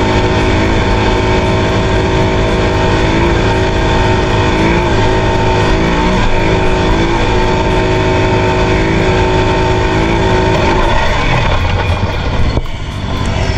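CFMOTO CForce 625 ATV engine running steadily at riding speed, its note wavering a few times. Near the end the engine note falls away and there is one sharp knock: the CVT belt breaking.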